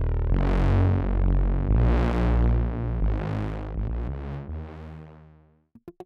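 u-he Zebra software synthesizer playing a big detuned bass patch: deep sustained notes whose filter opens and closes, swelling brighter about every second and a half. The bass fades out near the end, and a fast arpeggiated pattern of short plucks starts just after.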